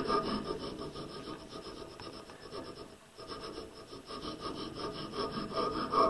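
Metal hand file rasping across a wooden backscratcher blank held in a vise, cutting a V-groove between teeth in short, rapid strokes, with a brief pause about three seconds in.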